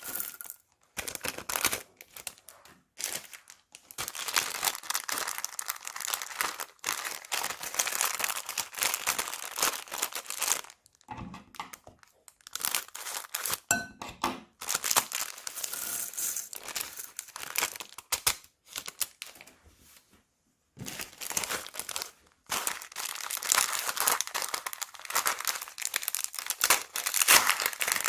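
Plastic bags crinkling as they are squeezed and handled, in stretches of a few seconds with short pauses between.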